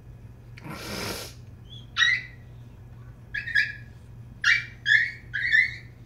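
Shiba Inu puppy yipping and whining in short high-pitched calls during rough play, about six calls from two seconds in, coming closer together toward the end. A short burst of noise comes about a second in.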